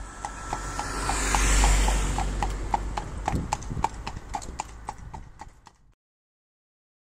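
Horse's hooves clip-clopping on an asphalt street, about four even strikes a second, as a bay gelding pulls a cart, over a low rumble. The sound cuts off abruptly about six seconds in.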